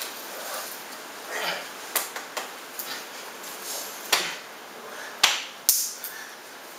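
Two people play-wrestling on a bed, scuffling, with a series of about six sharp smacks and knocks; the two loudest come a little past five seconds in.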